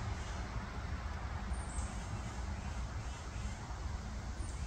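Steady outdoor background noise, a low rumble with a light hiss, and a faint high falling chirp twice, about a second and a half in and near the end.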